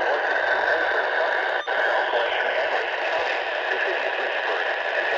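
Weather radio receiver playing a steady, loud static hiss. There is a brief dropout about a second and a half in.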